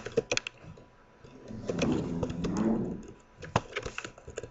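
Computer keyboard typing: scattered sharp key clicks in quick runs near the start and again near the end, with a low murmured voice in between.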